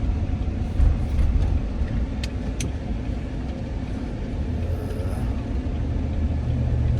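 Car driving, heard from inside the cabin: a steady low road and engine rumble, with two light clicks a little over two seconds in.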